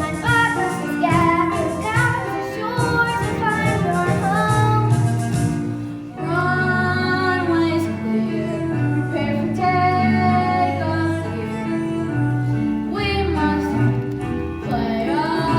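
A show tune from a stage musical: instrumental accompaniment with sustained bass notes under young voices singing the melody.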